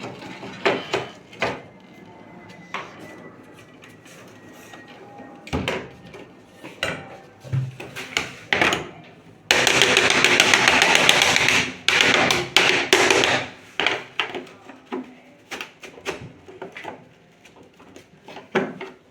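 Scattered knocks, taps and clatter of hand tools and machine parts during washing machine repair work. About nine and a half seconds in, a loud hissing rush starts suddenly and lasts about two and a half seconds.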